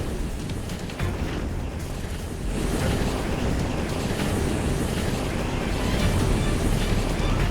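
A dense rushing, rumbling noise from an edited fight sound effect, swelling about two and a half seconds in, with music faintly underneath.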